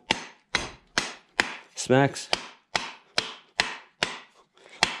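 Hammer striking a new wooden hatchet handle in a steady run of sharp knocks, about two a second, driving the hatchet head down to seat it on the handle.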